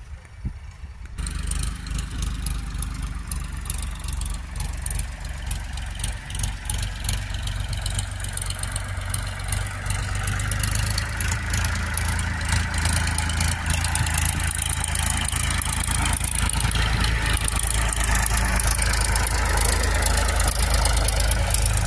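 Vehicle engine running steadily, with a constant clicking and rattling over it. It starts about a second in and slowly grows louder.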